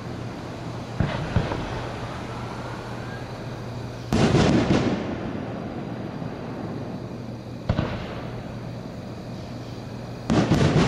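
1.3G consumer aerial fireworks going off in a series of bangs. Two sharp reports come about a second in, a louder, longer burst a little after four seconds, another single bang near eight seconds, and a loud cluster of bangs at the end.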